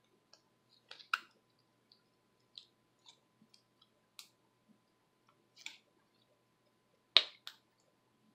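Thick, slightly overactivated slime being stretched and squeezed by hand, giving off scattered sticky clicks and pops at irregular intervals, the loudest about a second in and near the end.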